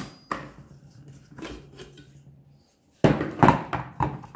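Clatter of a Silvercrest Monsieur Cuisine Edition Plus kitchen machine being opened after kneading: its plastic lid is unlocked and lifted off and its stainless steel mixing bowl is handled. The sound is a quick run of knocks and clicks, loudest about three seconds in. A low steady hum stops about two and a half seconds in.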